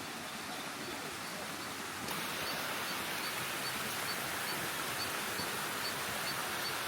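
Steady rush of a rainforest stream, louder from about two seconds in, with a small high chirp repeating about twice a second over it.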